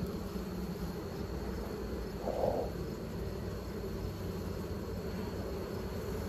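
Honey bees humming steadily over an open brood frame, a colony reacting calmly to a newly caged queen. A short louder noise cuts in about two and a half seconds in.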